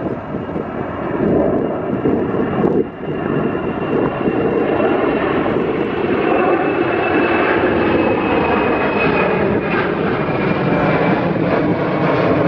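Twin-engine jet airliner's engines at takeoff power as it climbs out and passes nearly overhead: a loud, steady roar with a high whine that slowly falls in pitch.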